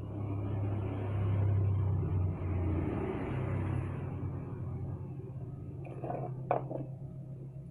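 A vehicle engine running, louder for the first few seconds and then settling to a steady idle, with a single short knock near the end.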